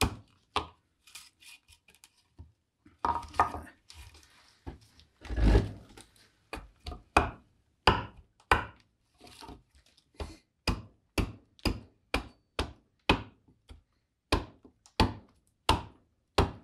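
Bowl adze chopping into green black walnut, hollowing a bowl: a series of sharp woody strikes, settling into a steady rhythm of about two a second from about halfway through. The loudest is a longer, heavier blow about five seconds in.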